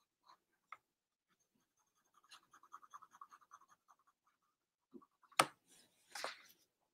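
Quick, light strokes of a pen scratching on sketchbook paper, faint. About five seconds in comes a sharp tap, then a short rustle of paper as the sketchbook is shifted.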